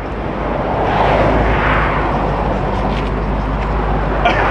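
Dodge Hellcat in motion: a steady rush of road and wind noise over a low rumble, growing louder through the first second and then holding.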